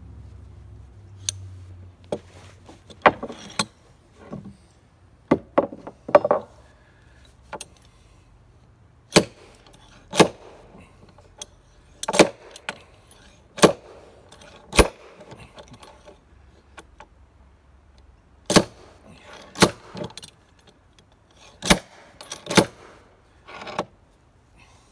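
Sharp metallic clinks and knocks from a long-handled steel hand tool worked against a fir plank, about twenty at uneven intervals, each ringing briefly.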